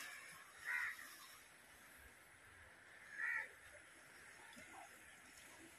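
A bird calling twice, two short calls about two and a half seconds apart, over faint background hiss.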